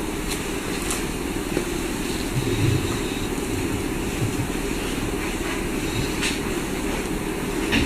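Steady low rumble of background room noise, with a few faint clicks and soft low thumps about two and a half seconds in.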